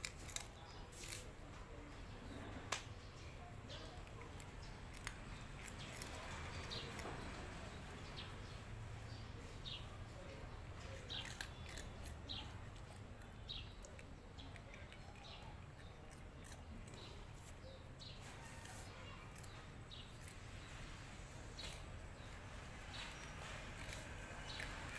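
A cat crunching dry, crunchy snack sticks: a scattered run of small, sharp crackles and clicks as it bites and chews.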